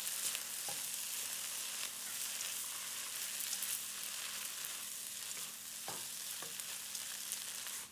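Shrimp pad thai noodles sizzling steadily in a hot wok as they are tossed and stirred with chopsticks and a wooden spatula, with a few light knocks of the utensils against the pan.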